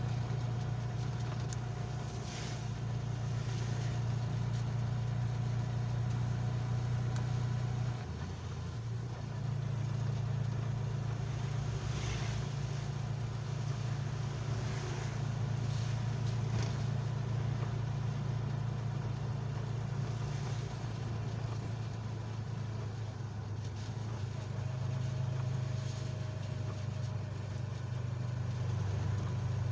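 A motor vehicle's engine drones steadily while driving, heard from inside the cab, with a brief dip in the drone about 8 seconds in.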